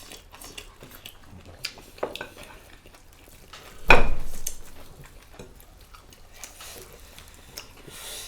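Small clicks and clinks of dishes and utensils at a meal, with one loud knock against the table or a plate about four seconds in.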